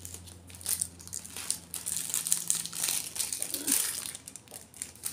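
Packaging crinkling in the hands in short, uneven rustles while 3D nail art brushes are being unpacked.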